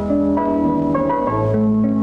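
Background music: sustained chords that shift to new notes every half second or so.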